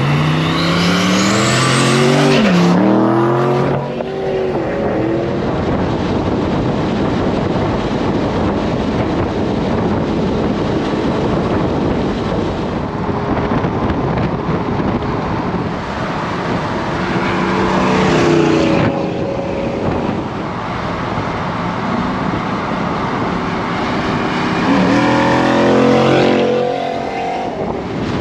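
Pickup truck engine accelerating hard three times: near the start, about two-thirds of the way through and near the end. Each time the pitch climbs and drops back at a gear change. Steady wind and road noise fill the gaps between.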